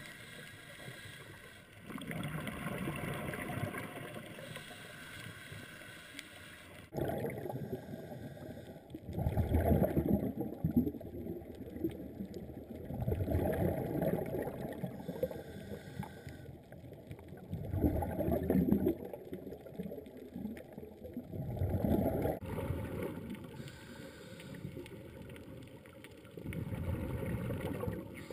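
Muffled underwater rushing and gurgling of a scuba diver's exhaled bubbles from the regulator, swelling in surges every few seconds. The background noise changes abruptly twice.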